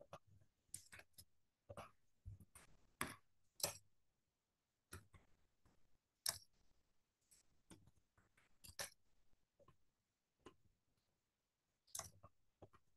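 Faint, irregular clicks and taps of a computer keyboard and mouse as dimensions are typed in and objects are clicked, with short pauses between bursts.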